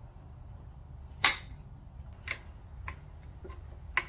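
Metal tool clicks: one sharp, loud click about a second in, then four lighter clicks, from vice grips gripping and working the clamping bolt of the blower motor's mounting bracket.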